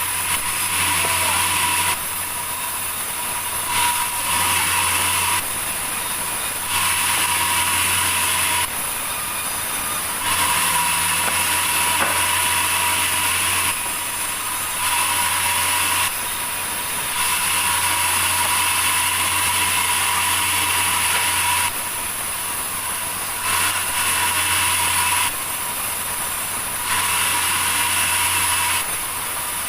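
Sawmill machinery running steadily, its hum and high whine stepping between a louder and a quieter state every one to two seconds.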